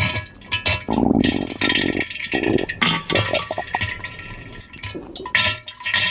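Comedic pooping and diarrhea sound effect: irregular wet splattering and splashing into water, in uneven bursts broken by sharp clicks.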